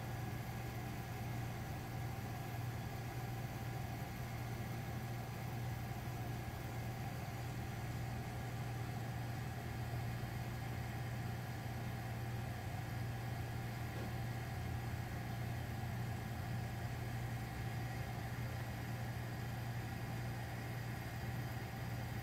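Steady low electrical hum with faint steady whine tones above it, unchanging throughout.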